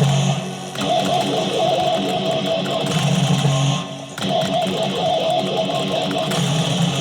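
Music led by a guitar-like plucked and strummed part, with a phrase that repeats about every three and a half seconds and dips briefly between repeats.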